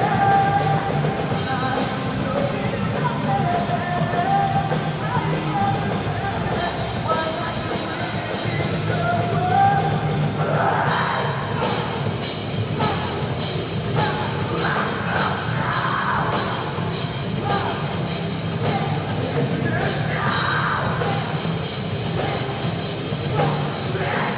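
Live rock band playing: electric guitars and drums under a lead vocalist. About halfway through, the drumming fills with dense cymbal hits and the vocal turns to shouting.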